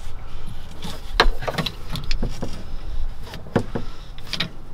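A handful of sharp, irregular clicks and knocks from hand tools and parts being handled while working on a Polaris RZR's driveline.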